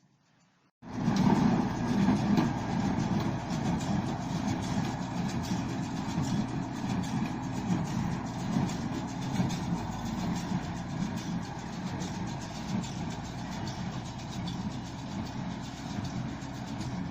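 Harvest machinery running steadily: an engine's low drone with mechanical rattle, starting suddenly just under a second in.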